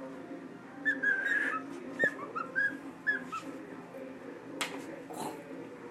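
Pet cockatoo whistling a run of about eight short notes in the first half, with a couple of sharp clicks.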